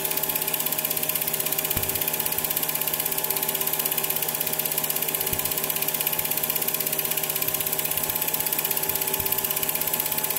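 Old film projector running: a rapid, even clatter of the film advancing through the gate over a steady motor hum.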